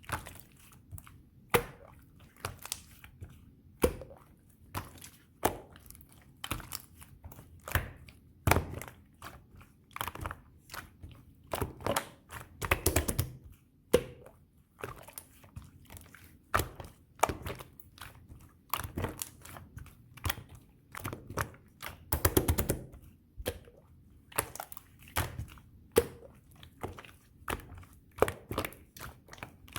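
Slime being squished, poked and folded by hand, giving irregular wet clicks and pops of trapped air. Twice it breaks into a run of rapid crackling pops.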